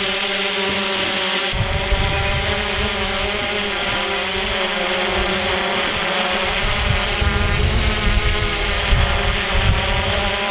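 SJRC F11 quadcopter flying close by, its four motors and propellers giving a steady whine of several tones that waver slightly. Wind rumbles on the microphone from about a second and a half in.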